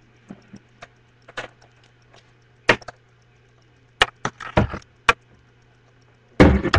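A dozen or so sharp knocks and clicks at irregular intervals, with a denser clatter near the end, over a faint steady low hum.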